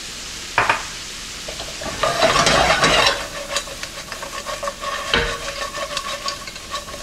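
Chicken wings sizzling in melted garlic butter in a skillet as the pan is shaken and tossed, the food sliding and rattling around the pan. The sizzle swells loudest from about two to three seconds in, and there are two sharp knocks, one about half a second in and one around five seconds in.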